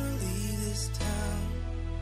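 Background music: sustained chords over a steady bass, with a short melody line near the start and a change of chord about a second in.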